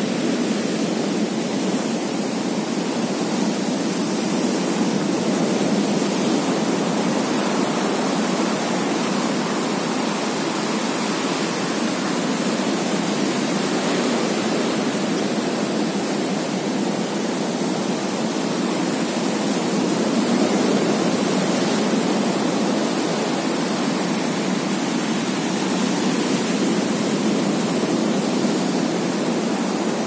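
Ocean surf breaking on a sandy beach: a steady rush of whitewater that swells slightly about six seconds in and again around twenty seconds.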